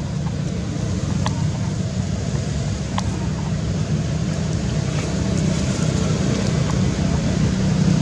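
Steady low rumble of background noise, with a few faint short clicks about a second and three seconds in.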